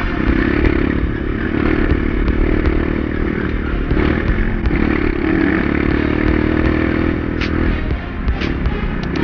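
Kawasaki KLX150 dirt bike's single-cylinder four-stroke engine running as the bike is ridden, its pitch holding fairly steady with small dips about four seconds in and near the end.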